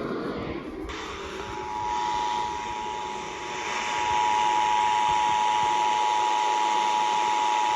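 Emergency Alert System attention signal: the steady two-tone alarm at about 853 and 960 Hz, starting about a second and a half in, heard over a hiss of radio static from weak reception.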